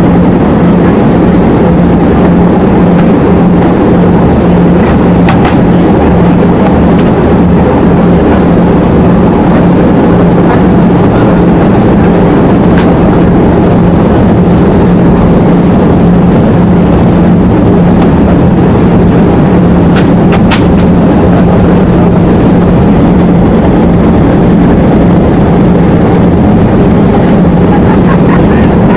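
Jet airliner cabin noise on approach: the steady loud drone of the turbofan engines and rushing air, with a constant low hum. A few faint clicks or rattles are heard along the way.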